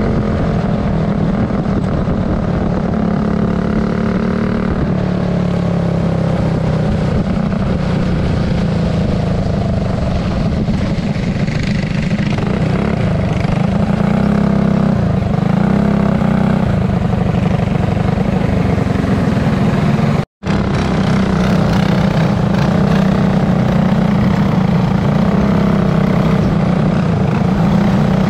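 Racing kart engine running hard, heard from on board the kart, a loud steady drone whose pitch rises and falls as the kart goes through the turns. The sound cuts out completely for an instant about twenty seconds in.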